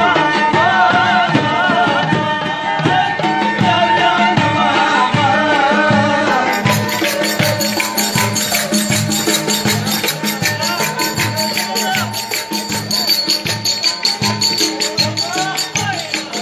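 Kastamonu folk dance music: a kemane, a bowed folk fiddle, plays a wavering melody over the steady beat of a davul bass drum. About six seconds in, the sound changes to a fast, even beat of davul strokes and clicking wooden spoons, with the bowed melody fainter.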